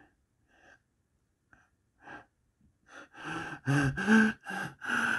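A person's voice without words: faint short breathy gasps, then from about three seconds in louder, rapid voiced pulses about three a second.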